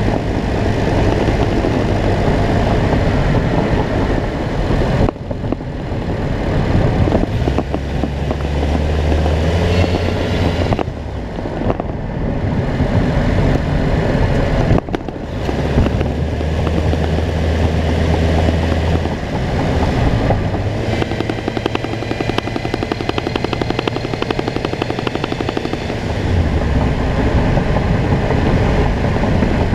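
2006 Honda CR-V four-cylinder engine running, with a heavy low rumble that swells and falls back several times. The shaking and vibration come from a failing engine mount, which the owner takes to be bad.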